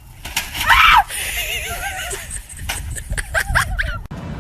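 An animal's calls: a sharp, loud cry just before a second in, then two long, wavering, quavering calls. The sound cuts off suddenly near the end.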